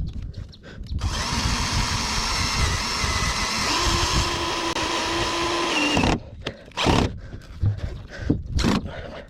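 Handheld power tool running steadily for about five seconds, stopping suddenly, then two short bursts near the end, with wind rumbling on the microphone.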